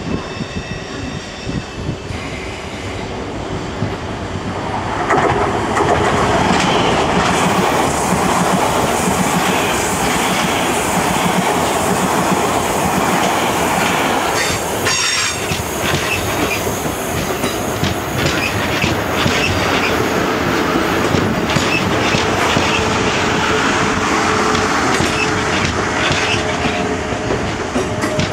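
A South West Trains Class 450 Desiro electric multiple unit running past close by, with steady wheel-on-rail noise and repeated clicks over the rail joints. The noise builds about four seconds in, as the train comes alongside, and then holds steady.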